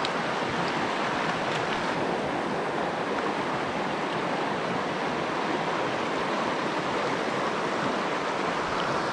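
Steady rush of water from a small river rapids.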